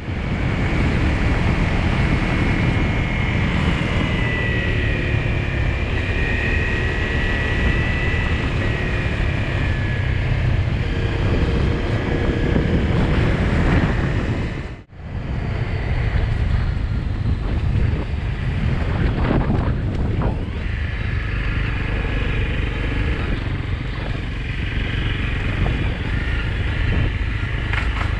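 A vehicle running along a road, with wind rushing over the microphone and engine tones rising and falling. The sound cuts out briefly about halfway through.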